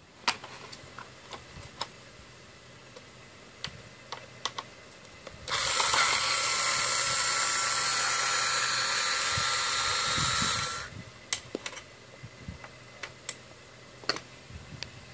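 Cordless electric screwdriver whirring steadily with a constant whine for about five seconds, unscrewing part of an FM tuner's metal chassis to take it apart. Light clicks and taps of handling the chassis and screws come before and after it.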